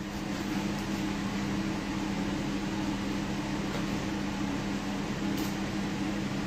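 Steady hum of a kitchen appliance's motor running, with an even low tone that does not change.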